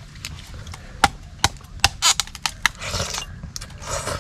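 Repeated sharp knocks and cracks, with three short crunching bursts: hard food being smashed open by hand to get at what is inside.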